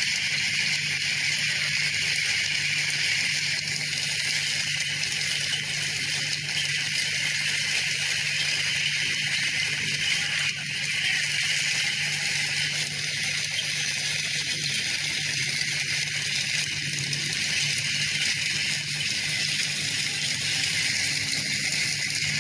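Hailstorm: hail pelting down in strong wind, a steady rattling hiss with no letup.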